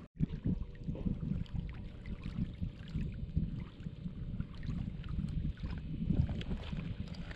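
River water lapping, with wind buffeting the microphone: an irregular low rumble, with a faint steady hum underneath.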